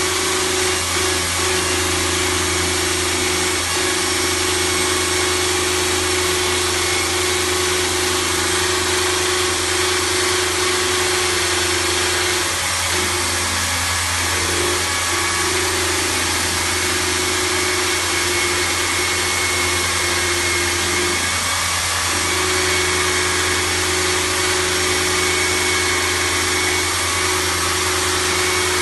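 Metal lathe running while machining a traction-motor cooling-fin ring held in a four-jaw chuck: a steady motor hum under a harsh cutting noise, with a steady tone that breaks off briefly twice.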